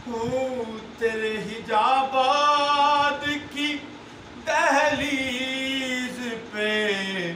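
A man singing a naat, an Urdu devotional poem, unaccompanied, in long held, ornamented notes that glide and waver. The phrases break off briefly about four seconds in, then a new phrase starts high and falls.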